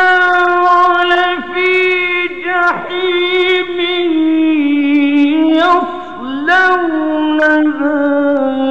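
A man's voice chanting a Quran recitation in the melodic, drawn-out style: long held notes with ornamented turns, the pitch stepping down in stages through the phrase, with brief breaks between phrases.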